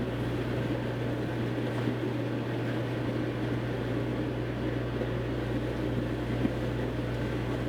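Steady low hum with a faint even hiss, unchanging throughout: background room noise.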